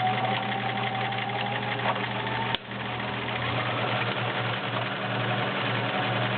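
Vintage all-metal Kenmore 1755 sewing machine, with a 1.2 amp motor, running steadily while sewing a cam-driven stretch stitch pattern. There is a sharp click and a brief dip about two and a half seconds in, then it runs on.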